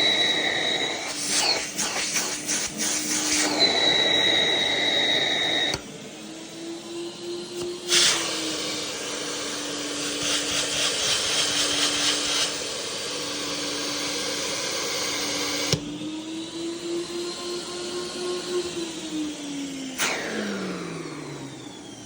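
MD SVT central vacuum power unit running with a steady motor hum and rushing air. Its pitch and loudness shift several times, with a few sharp knocks along the way. Near the end the pitch falls steadily as the motor winds down.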